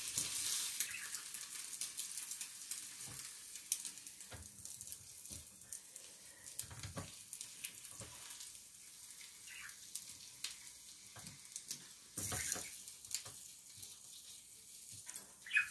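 An egg sizzling quietly on an electric grill plate, with scattered light clicks and scrapes of a wooden spatula against the plate as the egg is worked loose. The hiss swells briefly near the start and again about twelve seconds in.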